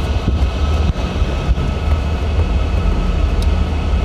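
Steady low rumble inside a car's cabin with the engine running, with rustling and a few light knocks as the handheld camera rubs against a cotton hoodie.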